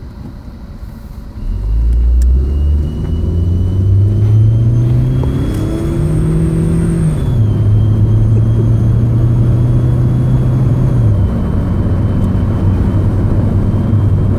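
Scion xA's four-cylinder engine pulling away and accelerating, with a thin high whistle from a turbo whistle fitted in its exhaust rising and falling along with the revs. The engine pitch drops sharply about seven seconds in and settles lower again about eleven seconds in.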